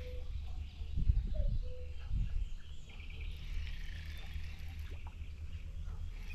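Birds and frogs calling over a steady low rumble, with a few short calls near the start and heavier rumbling about one and two seconds in.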